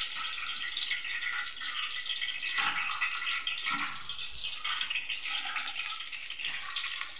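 Whole tempering spices sizzling steadily in hot coconut oil in a large aluminium pot, a hissing fry with fine crackle.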